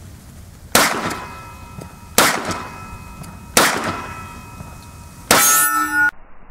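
Three sharp 9mm pistol shots from a P-08 Luger, about a second and a half apart, each followed by a metallic ringing that fades. Near the end comes a louder ringing clang lasting almost a second, which cuts off suddenly.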